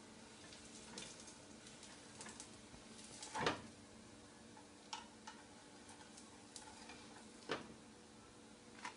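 Faint kitchen sounds: a few scattered clinks and knocks of cooking utensils, the loudest about three and a half seconds in, over a low steady hum.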